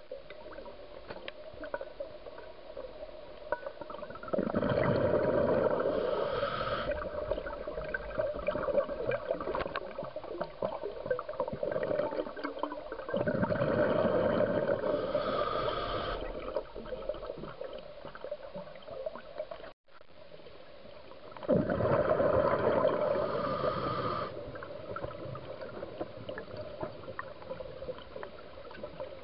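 Scuba diver's regulator breathing underwater: three long rushes of exhaled bubbles about eight seconds apart, with quieter breathing and bubbling between them.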